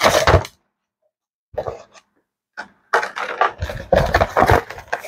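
Cardboard box and plastic packaging being handled and pulled apart: rustling and scraping in short irregular bursts, with a pause of about a second near the start and busier handling in the second half.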